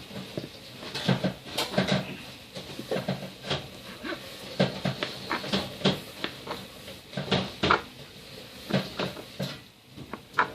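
Knife cutting crab sticks into cubes on a cutting board: irregular knocks of the blade on the board, about one or two a second.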